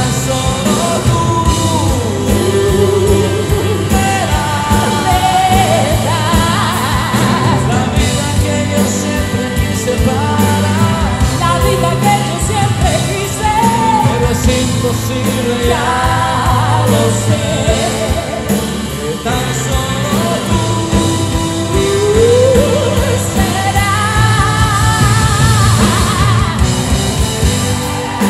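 Live pop-rock band playing a ballad duet: male and female voices singing over stage piano, bass guitar and drums, in a large hall.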